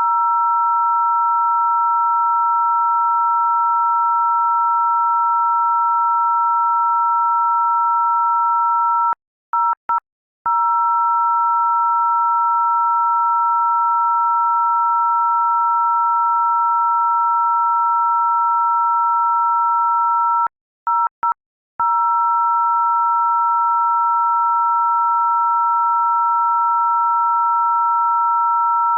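Loud, steady electronic two-note tone, two pure pitches held together like a telephone-style dial tone. It cuts out in a few quick stutters about nine seconds in and again about twenty-one seconds in.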